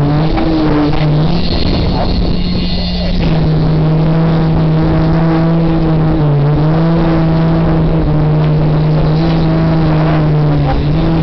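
Concrete poker vibrator running with a steady, loud motor hum as its flexible shaft is worked through freshly poured concrete. The pitch sags briefly a few times, near the start, midway and near the end.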